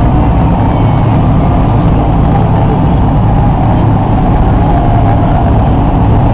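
A large vehicle's engine idling, a steady low rumble.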